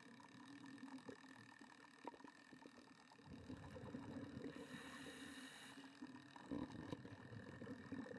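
Faint muffled underwater noise of scuba diving under a faint steady whine. Low rumbling of exhaled regulator bubbles swells from about three seconds in, and a short hiss of breath through the regulator comes just past the middle.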